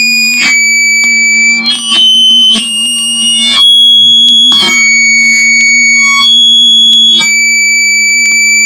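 A low steady hum through a microphone pressed to the ear and run through an amplifier, overlaid by loud, steady high-pitched whistling tones. The whistles jump abruptly from one pitch to another every second or so, with a click at each change.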